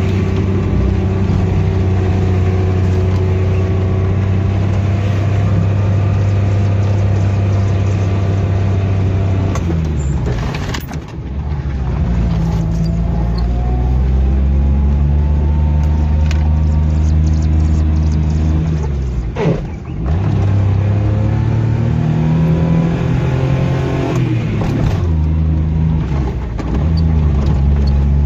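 Car engine heard from inside the cabin while driving, a steady low running note that dips and shifts in pitch twice, about 11 and 20 seconds in.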